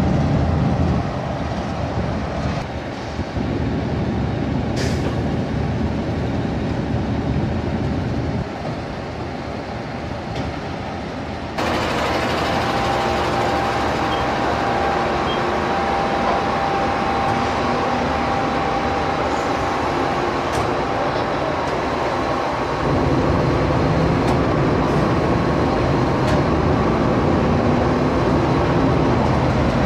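Terex 220-ton mobile crane's diesel engine running steadily while its outriggers are set. The sound gets louder and fuller about twelve seconds in, with a thin steady whine for several seconds after that, and gets deeper again a little past twenty seconds.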